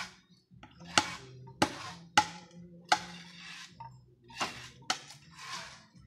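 Five sharp wooden knocks at uneven intervals on the bamboo fence as netting is fixed to it, with short swishing rustles of the net and bamboo in between.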